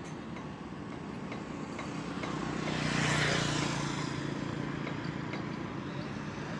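A motor engine passing by: a steady hum that grows louder to a peak about three seconds in, then fades.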